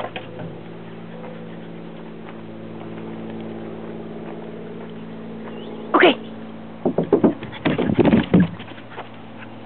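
A dog sliding down a plastic playground slide: a quick run of loud squeaks and bumps from its body on the plastic, from about seven to eight and a half seconds in. A short voice-like call comes just before, about six seconds in, and a steady low hum runs underneath.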